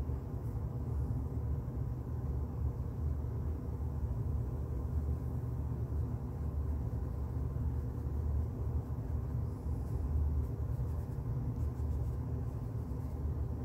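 Steady low rumble of background noise, unchanging throughout, with no distinct sounds standing out.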